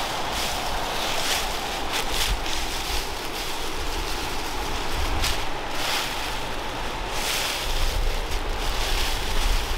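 Steady rush of a mountain river, with footsteps crunching through dry fallen leaves about once a second. Gusts of wind buffet the microphone now and then as a low rumble.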